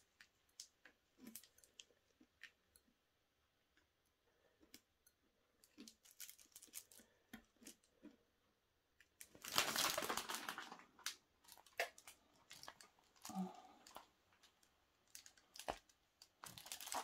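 Clear plastic cover film on a diamond-painting canvas crinkling as it is lifted and handled, with scattered small clicks and scrapes of metal tweezers picking at the sticky canvas. The crinkling is loudest for about two seconds around ten seconds in, and starts again near the end.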